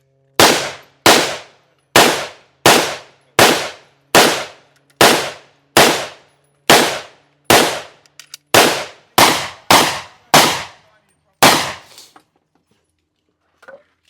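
A string of about fifteen close gunshots fired one at a time at a steady pace, a little under a second apart. Each shot is followed by a short echoing tail, and the firing stops about two seconds before the end.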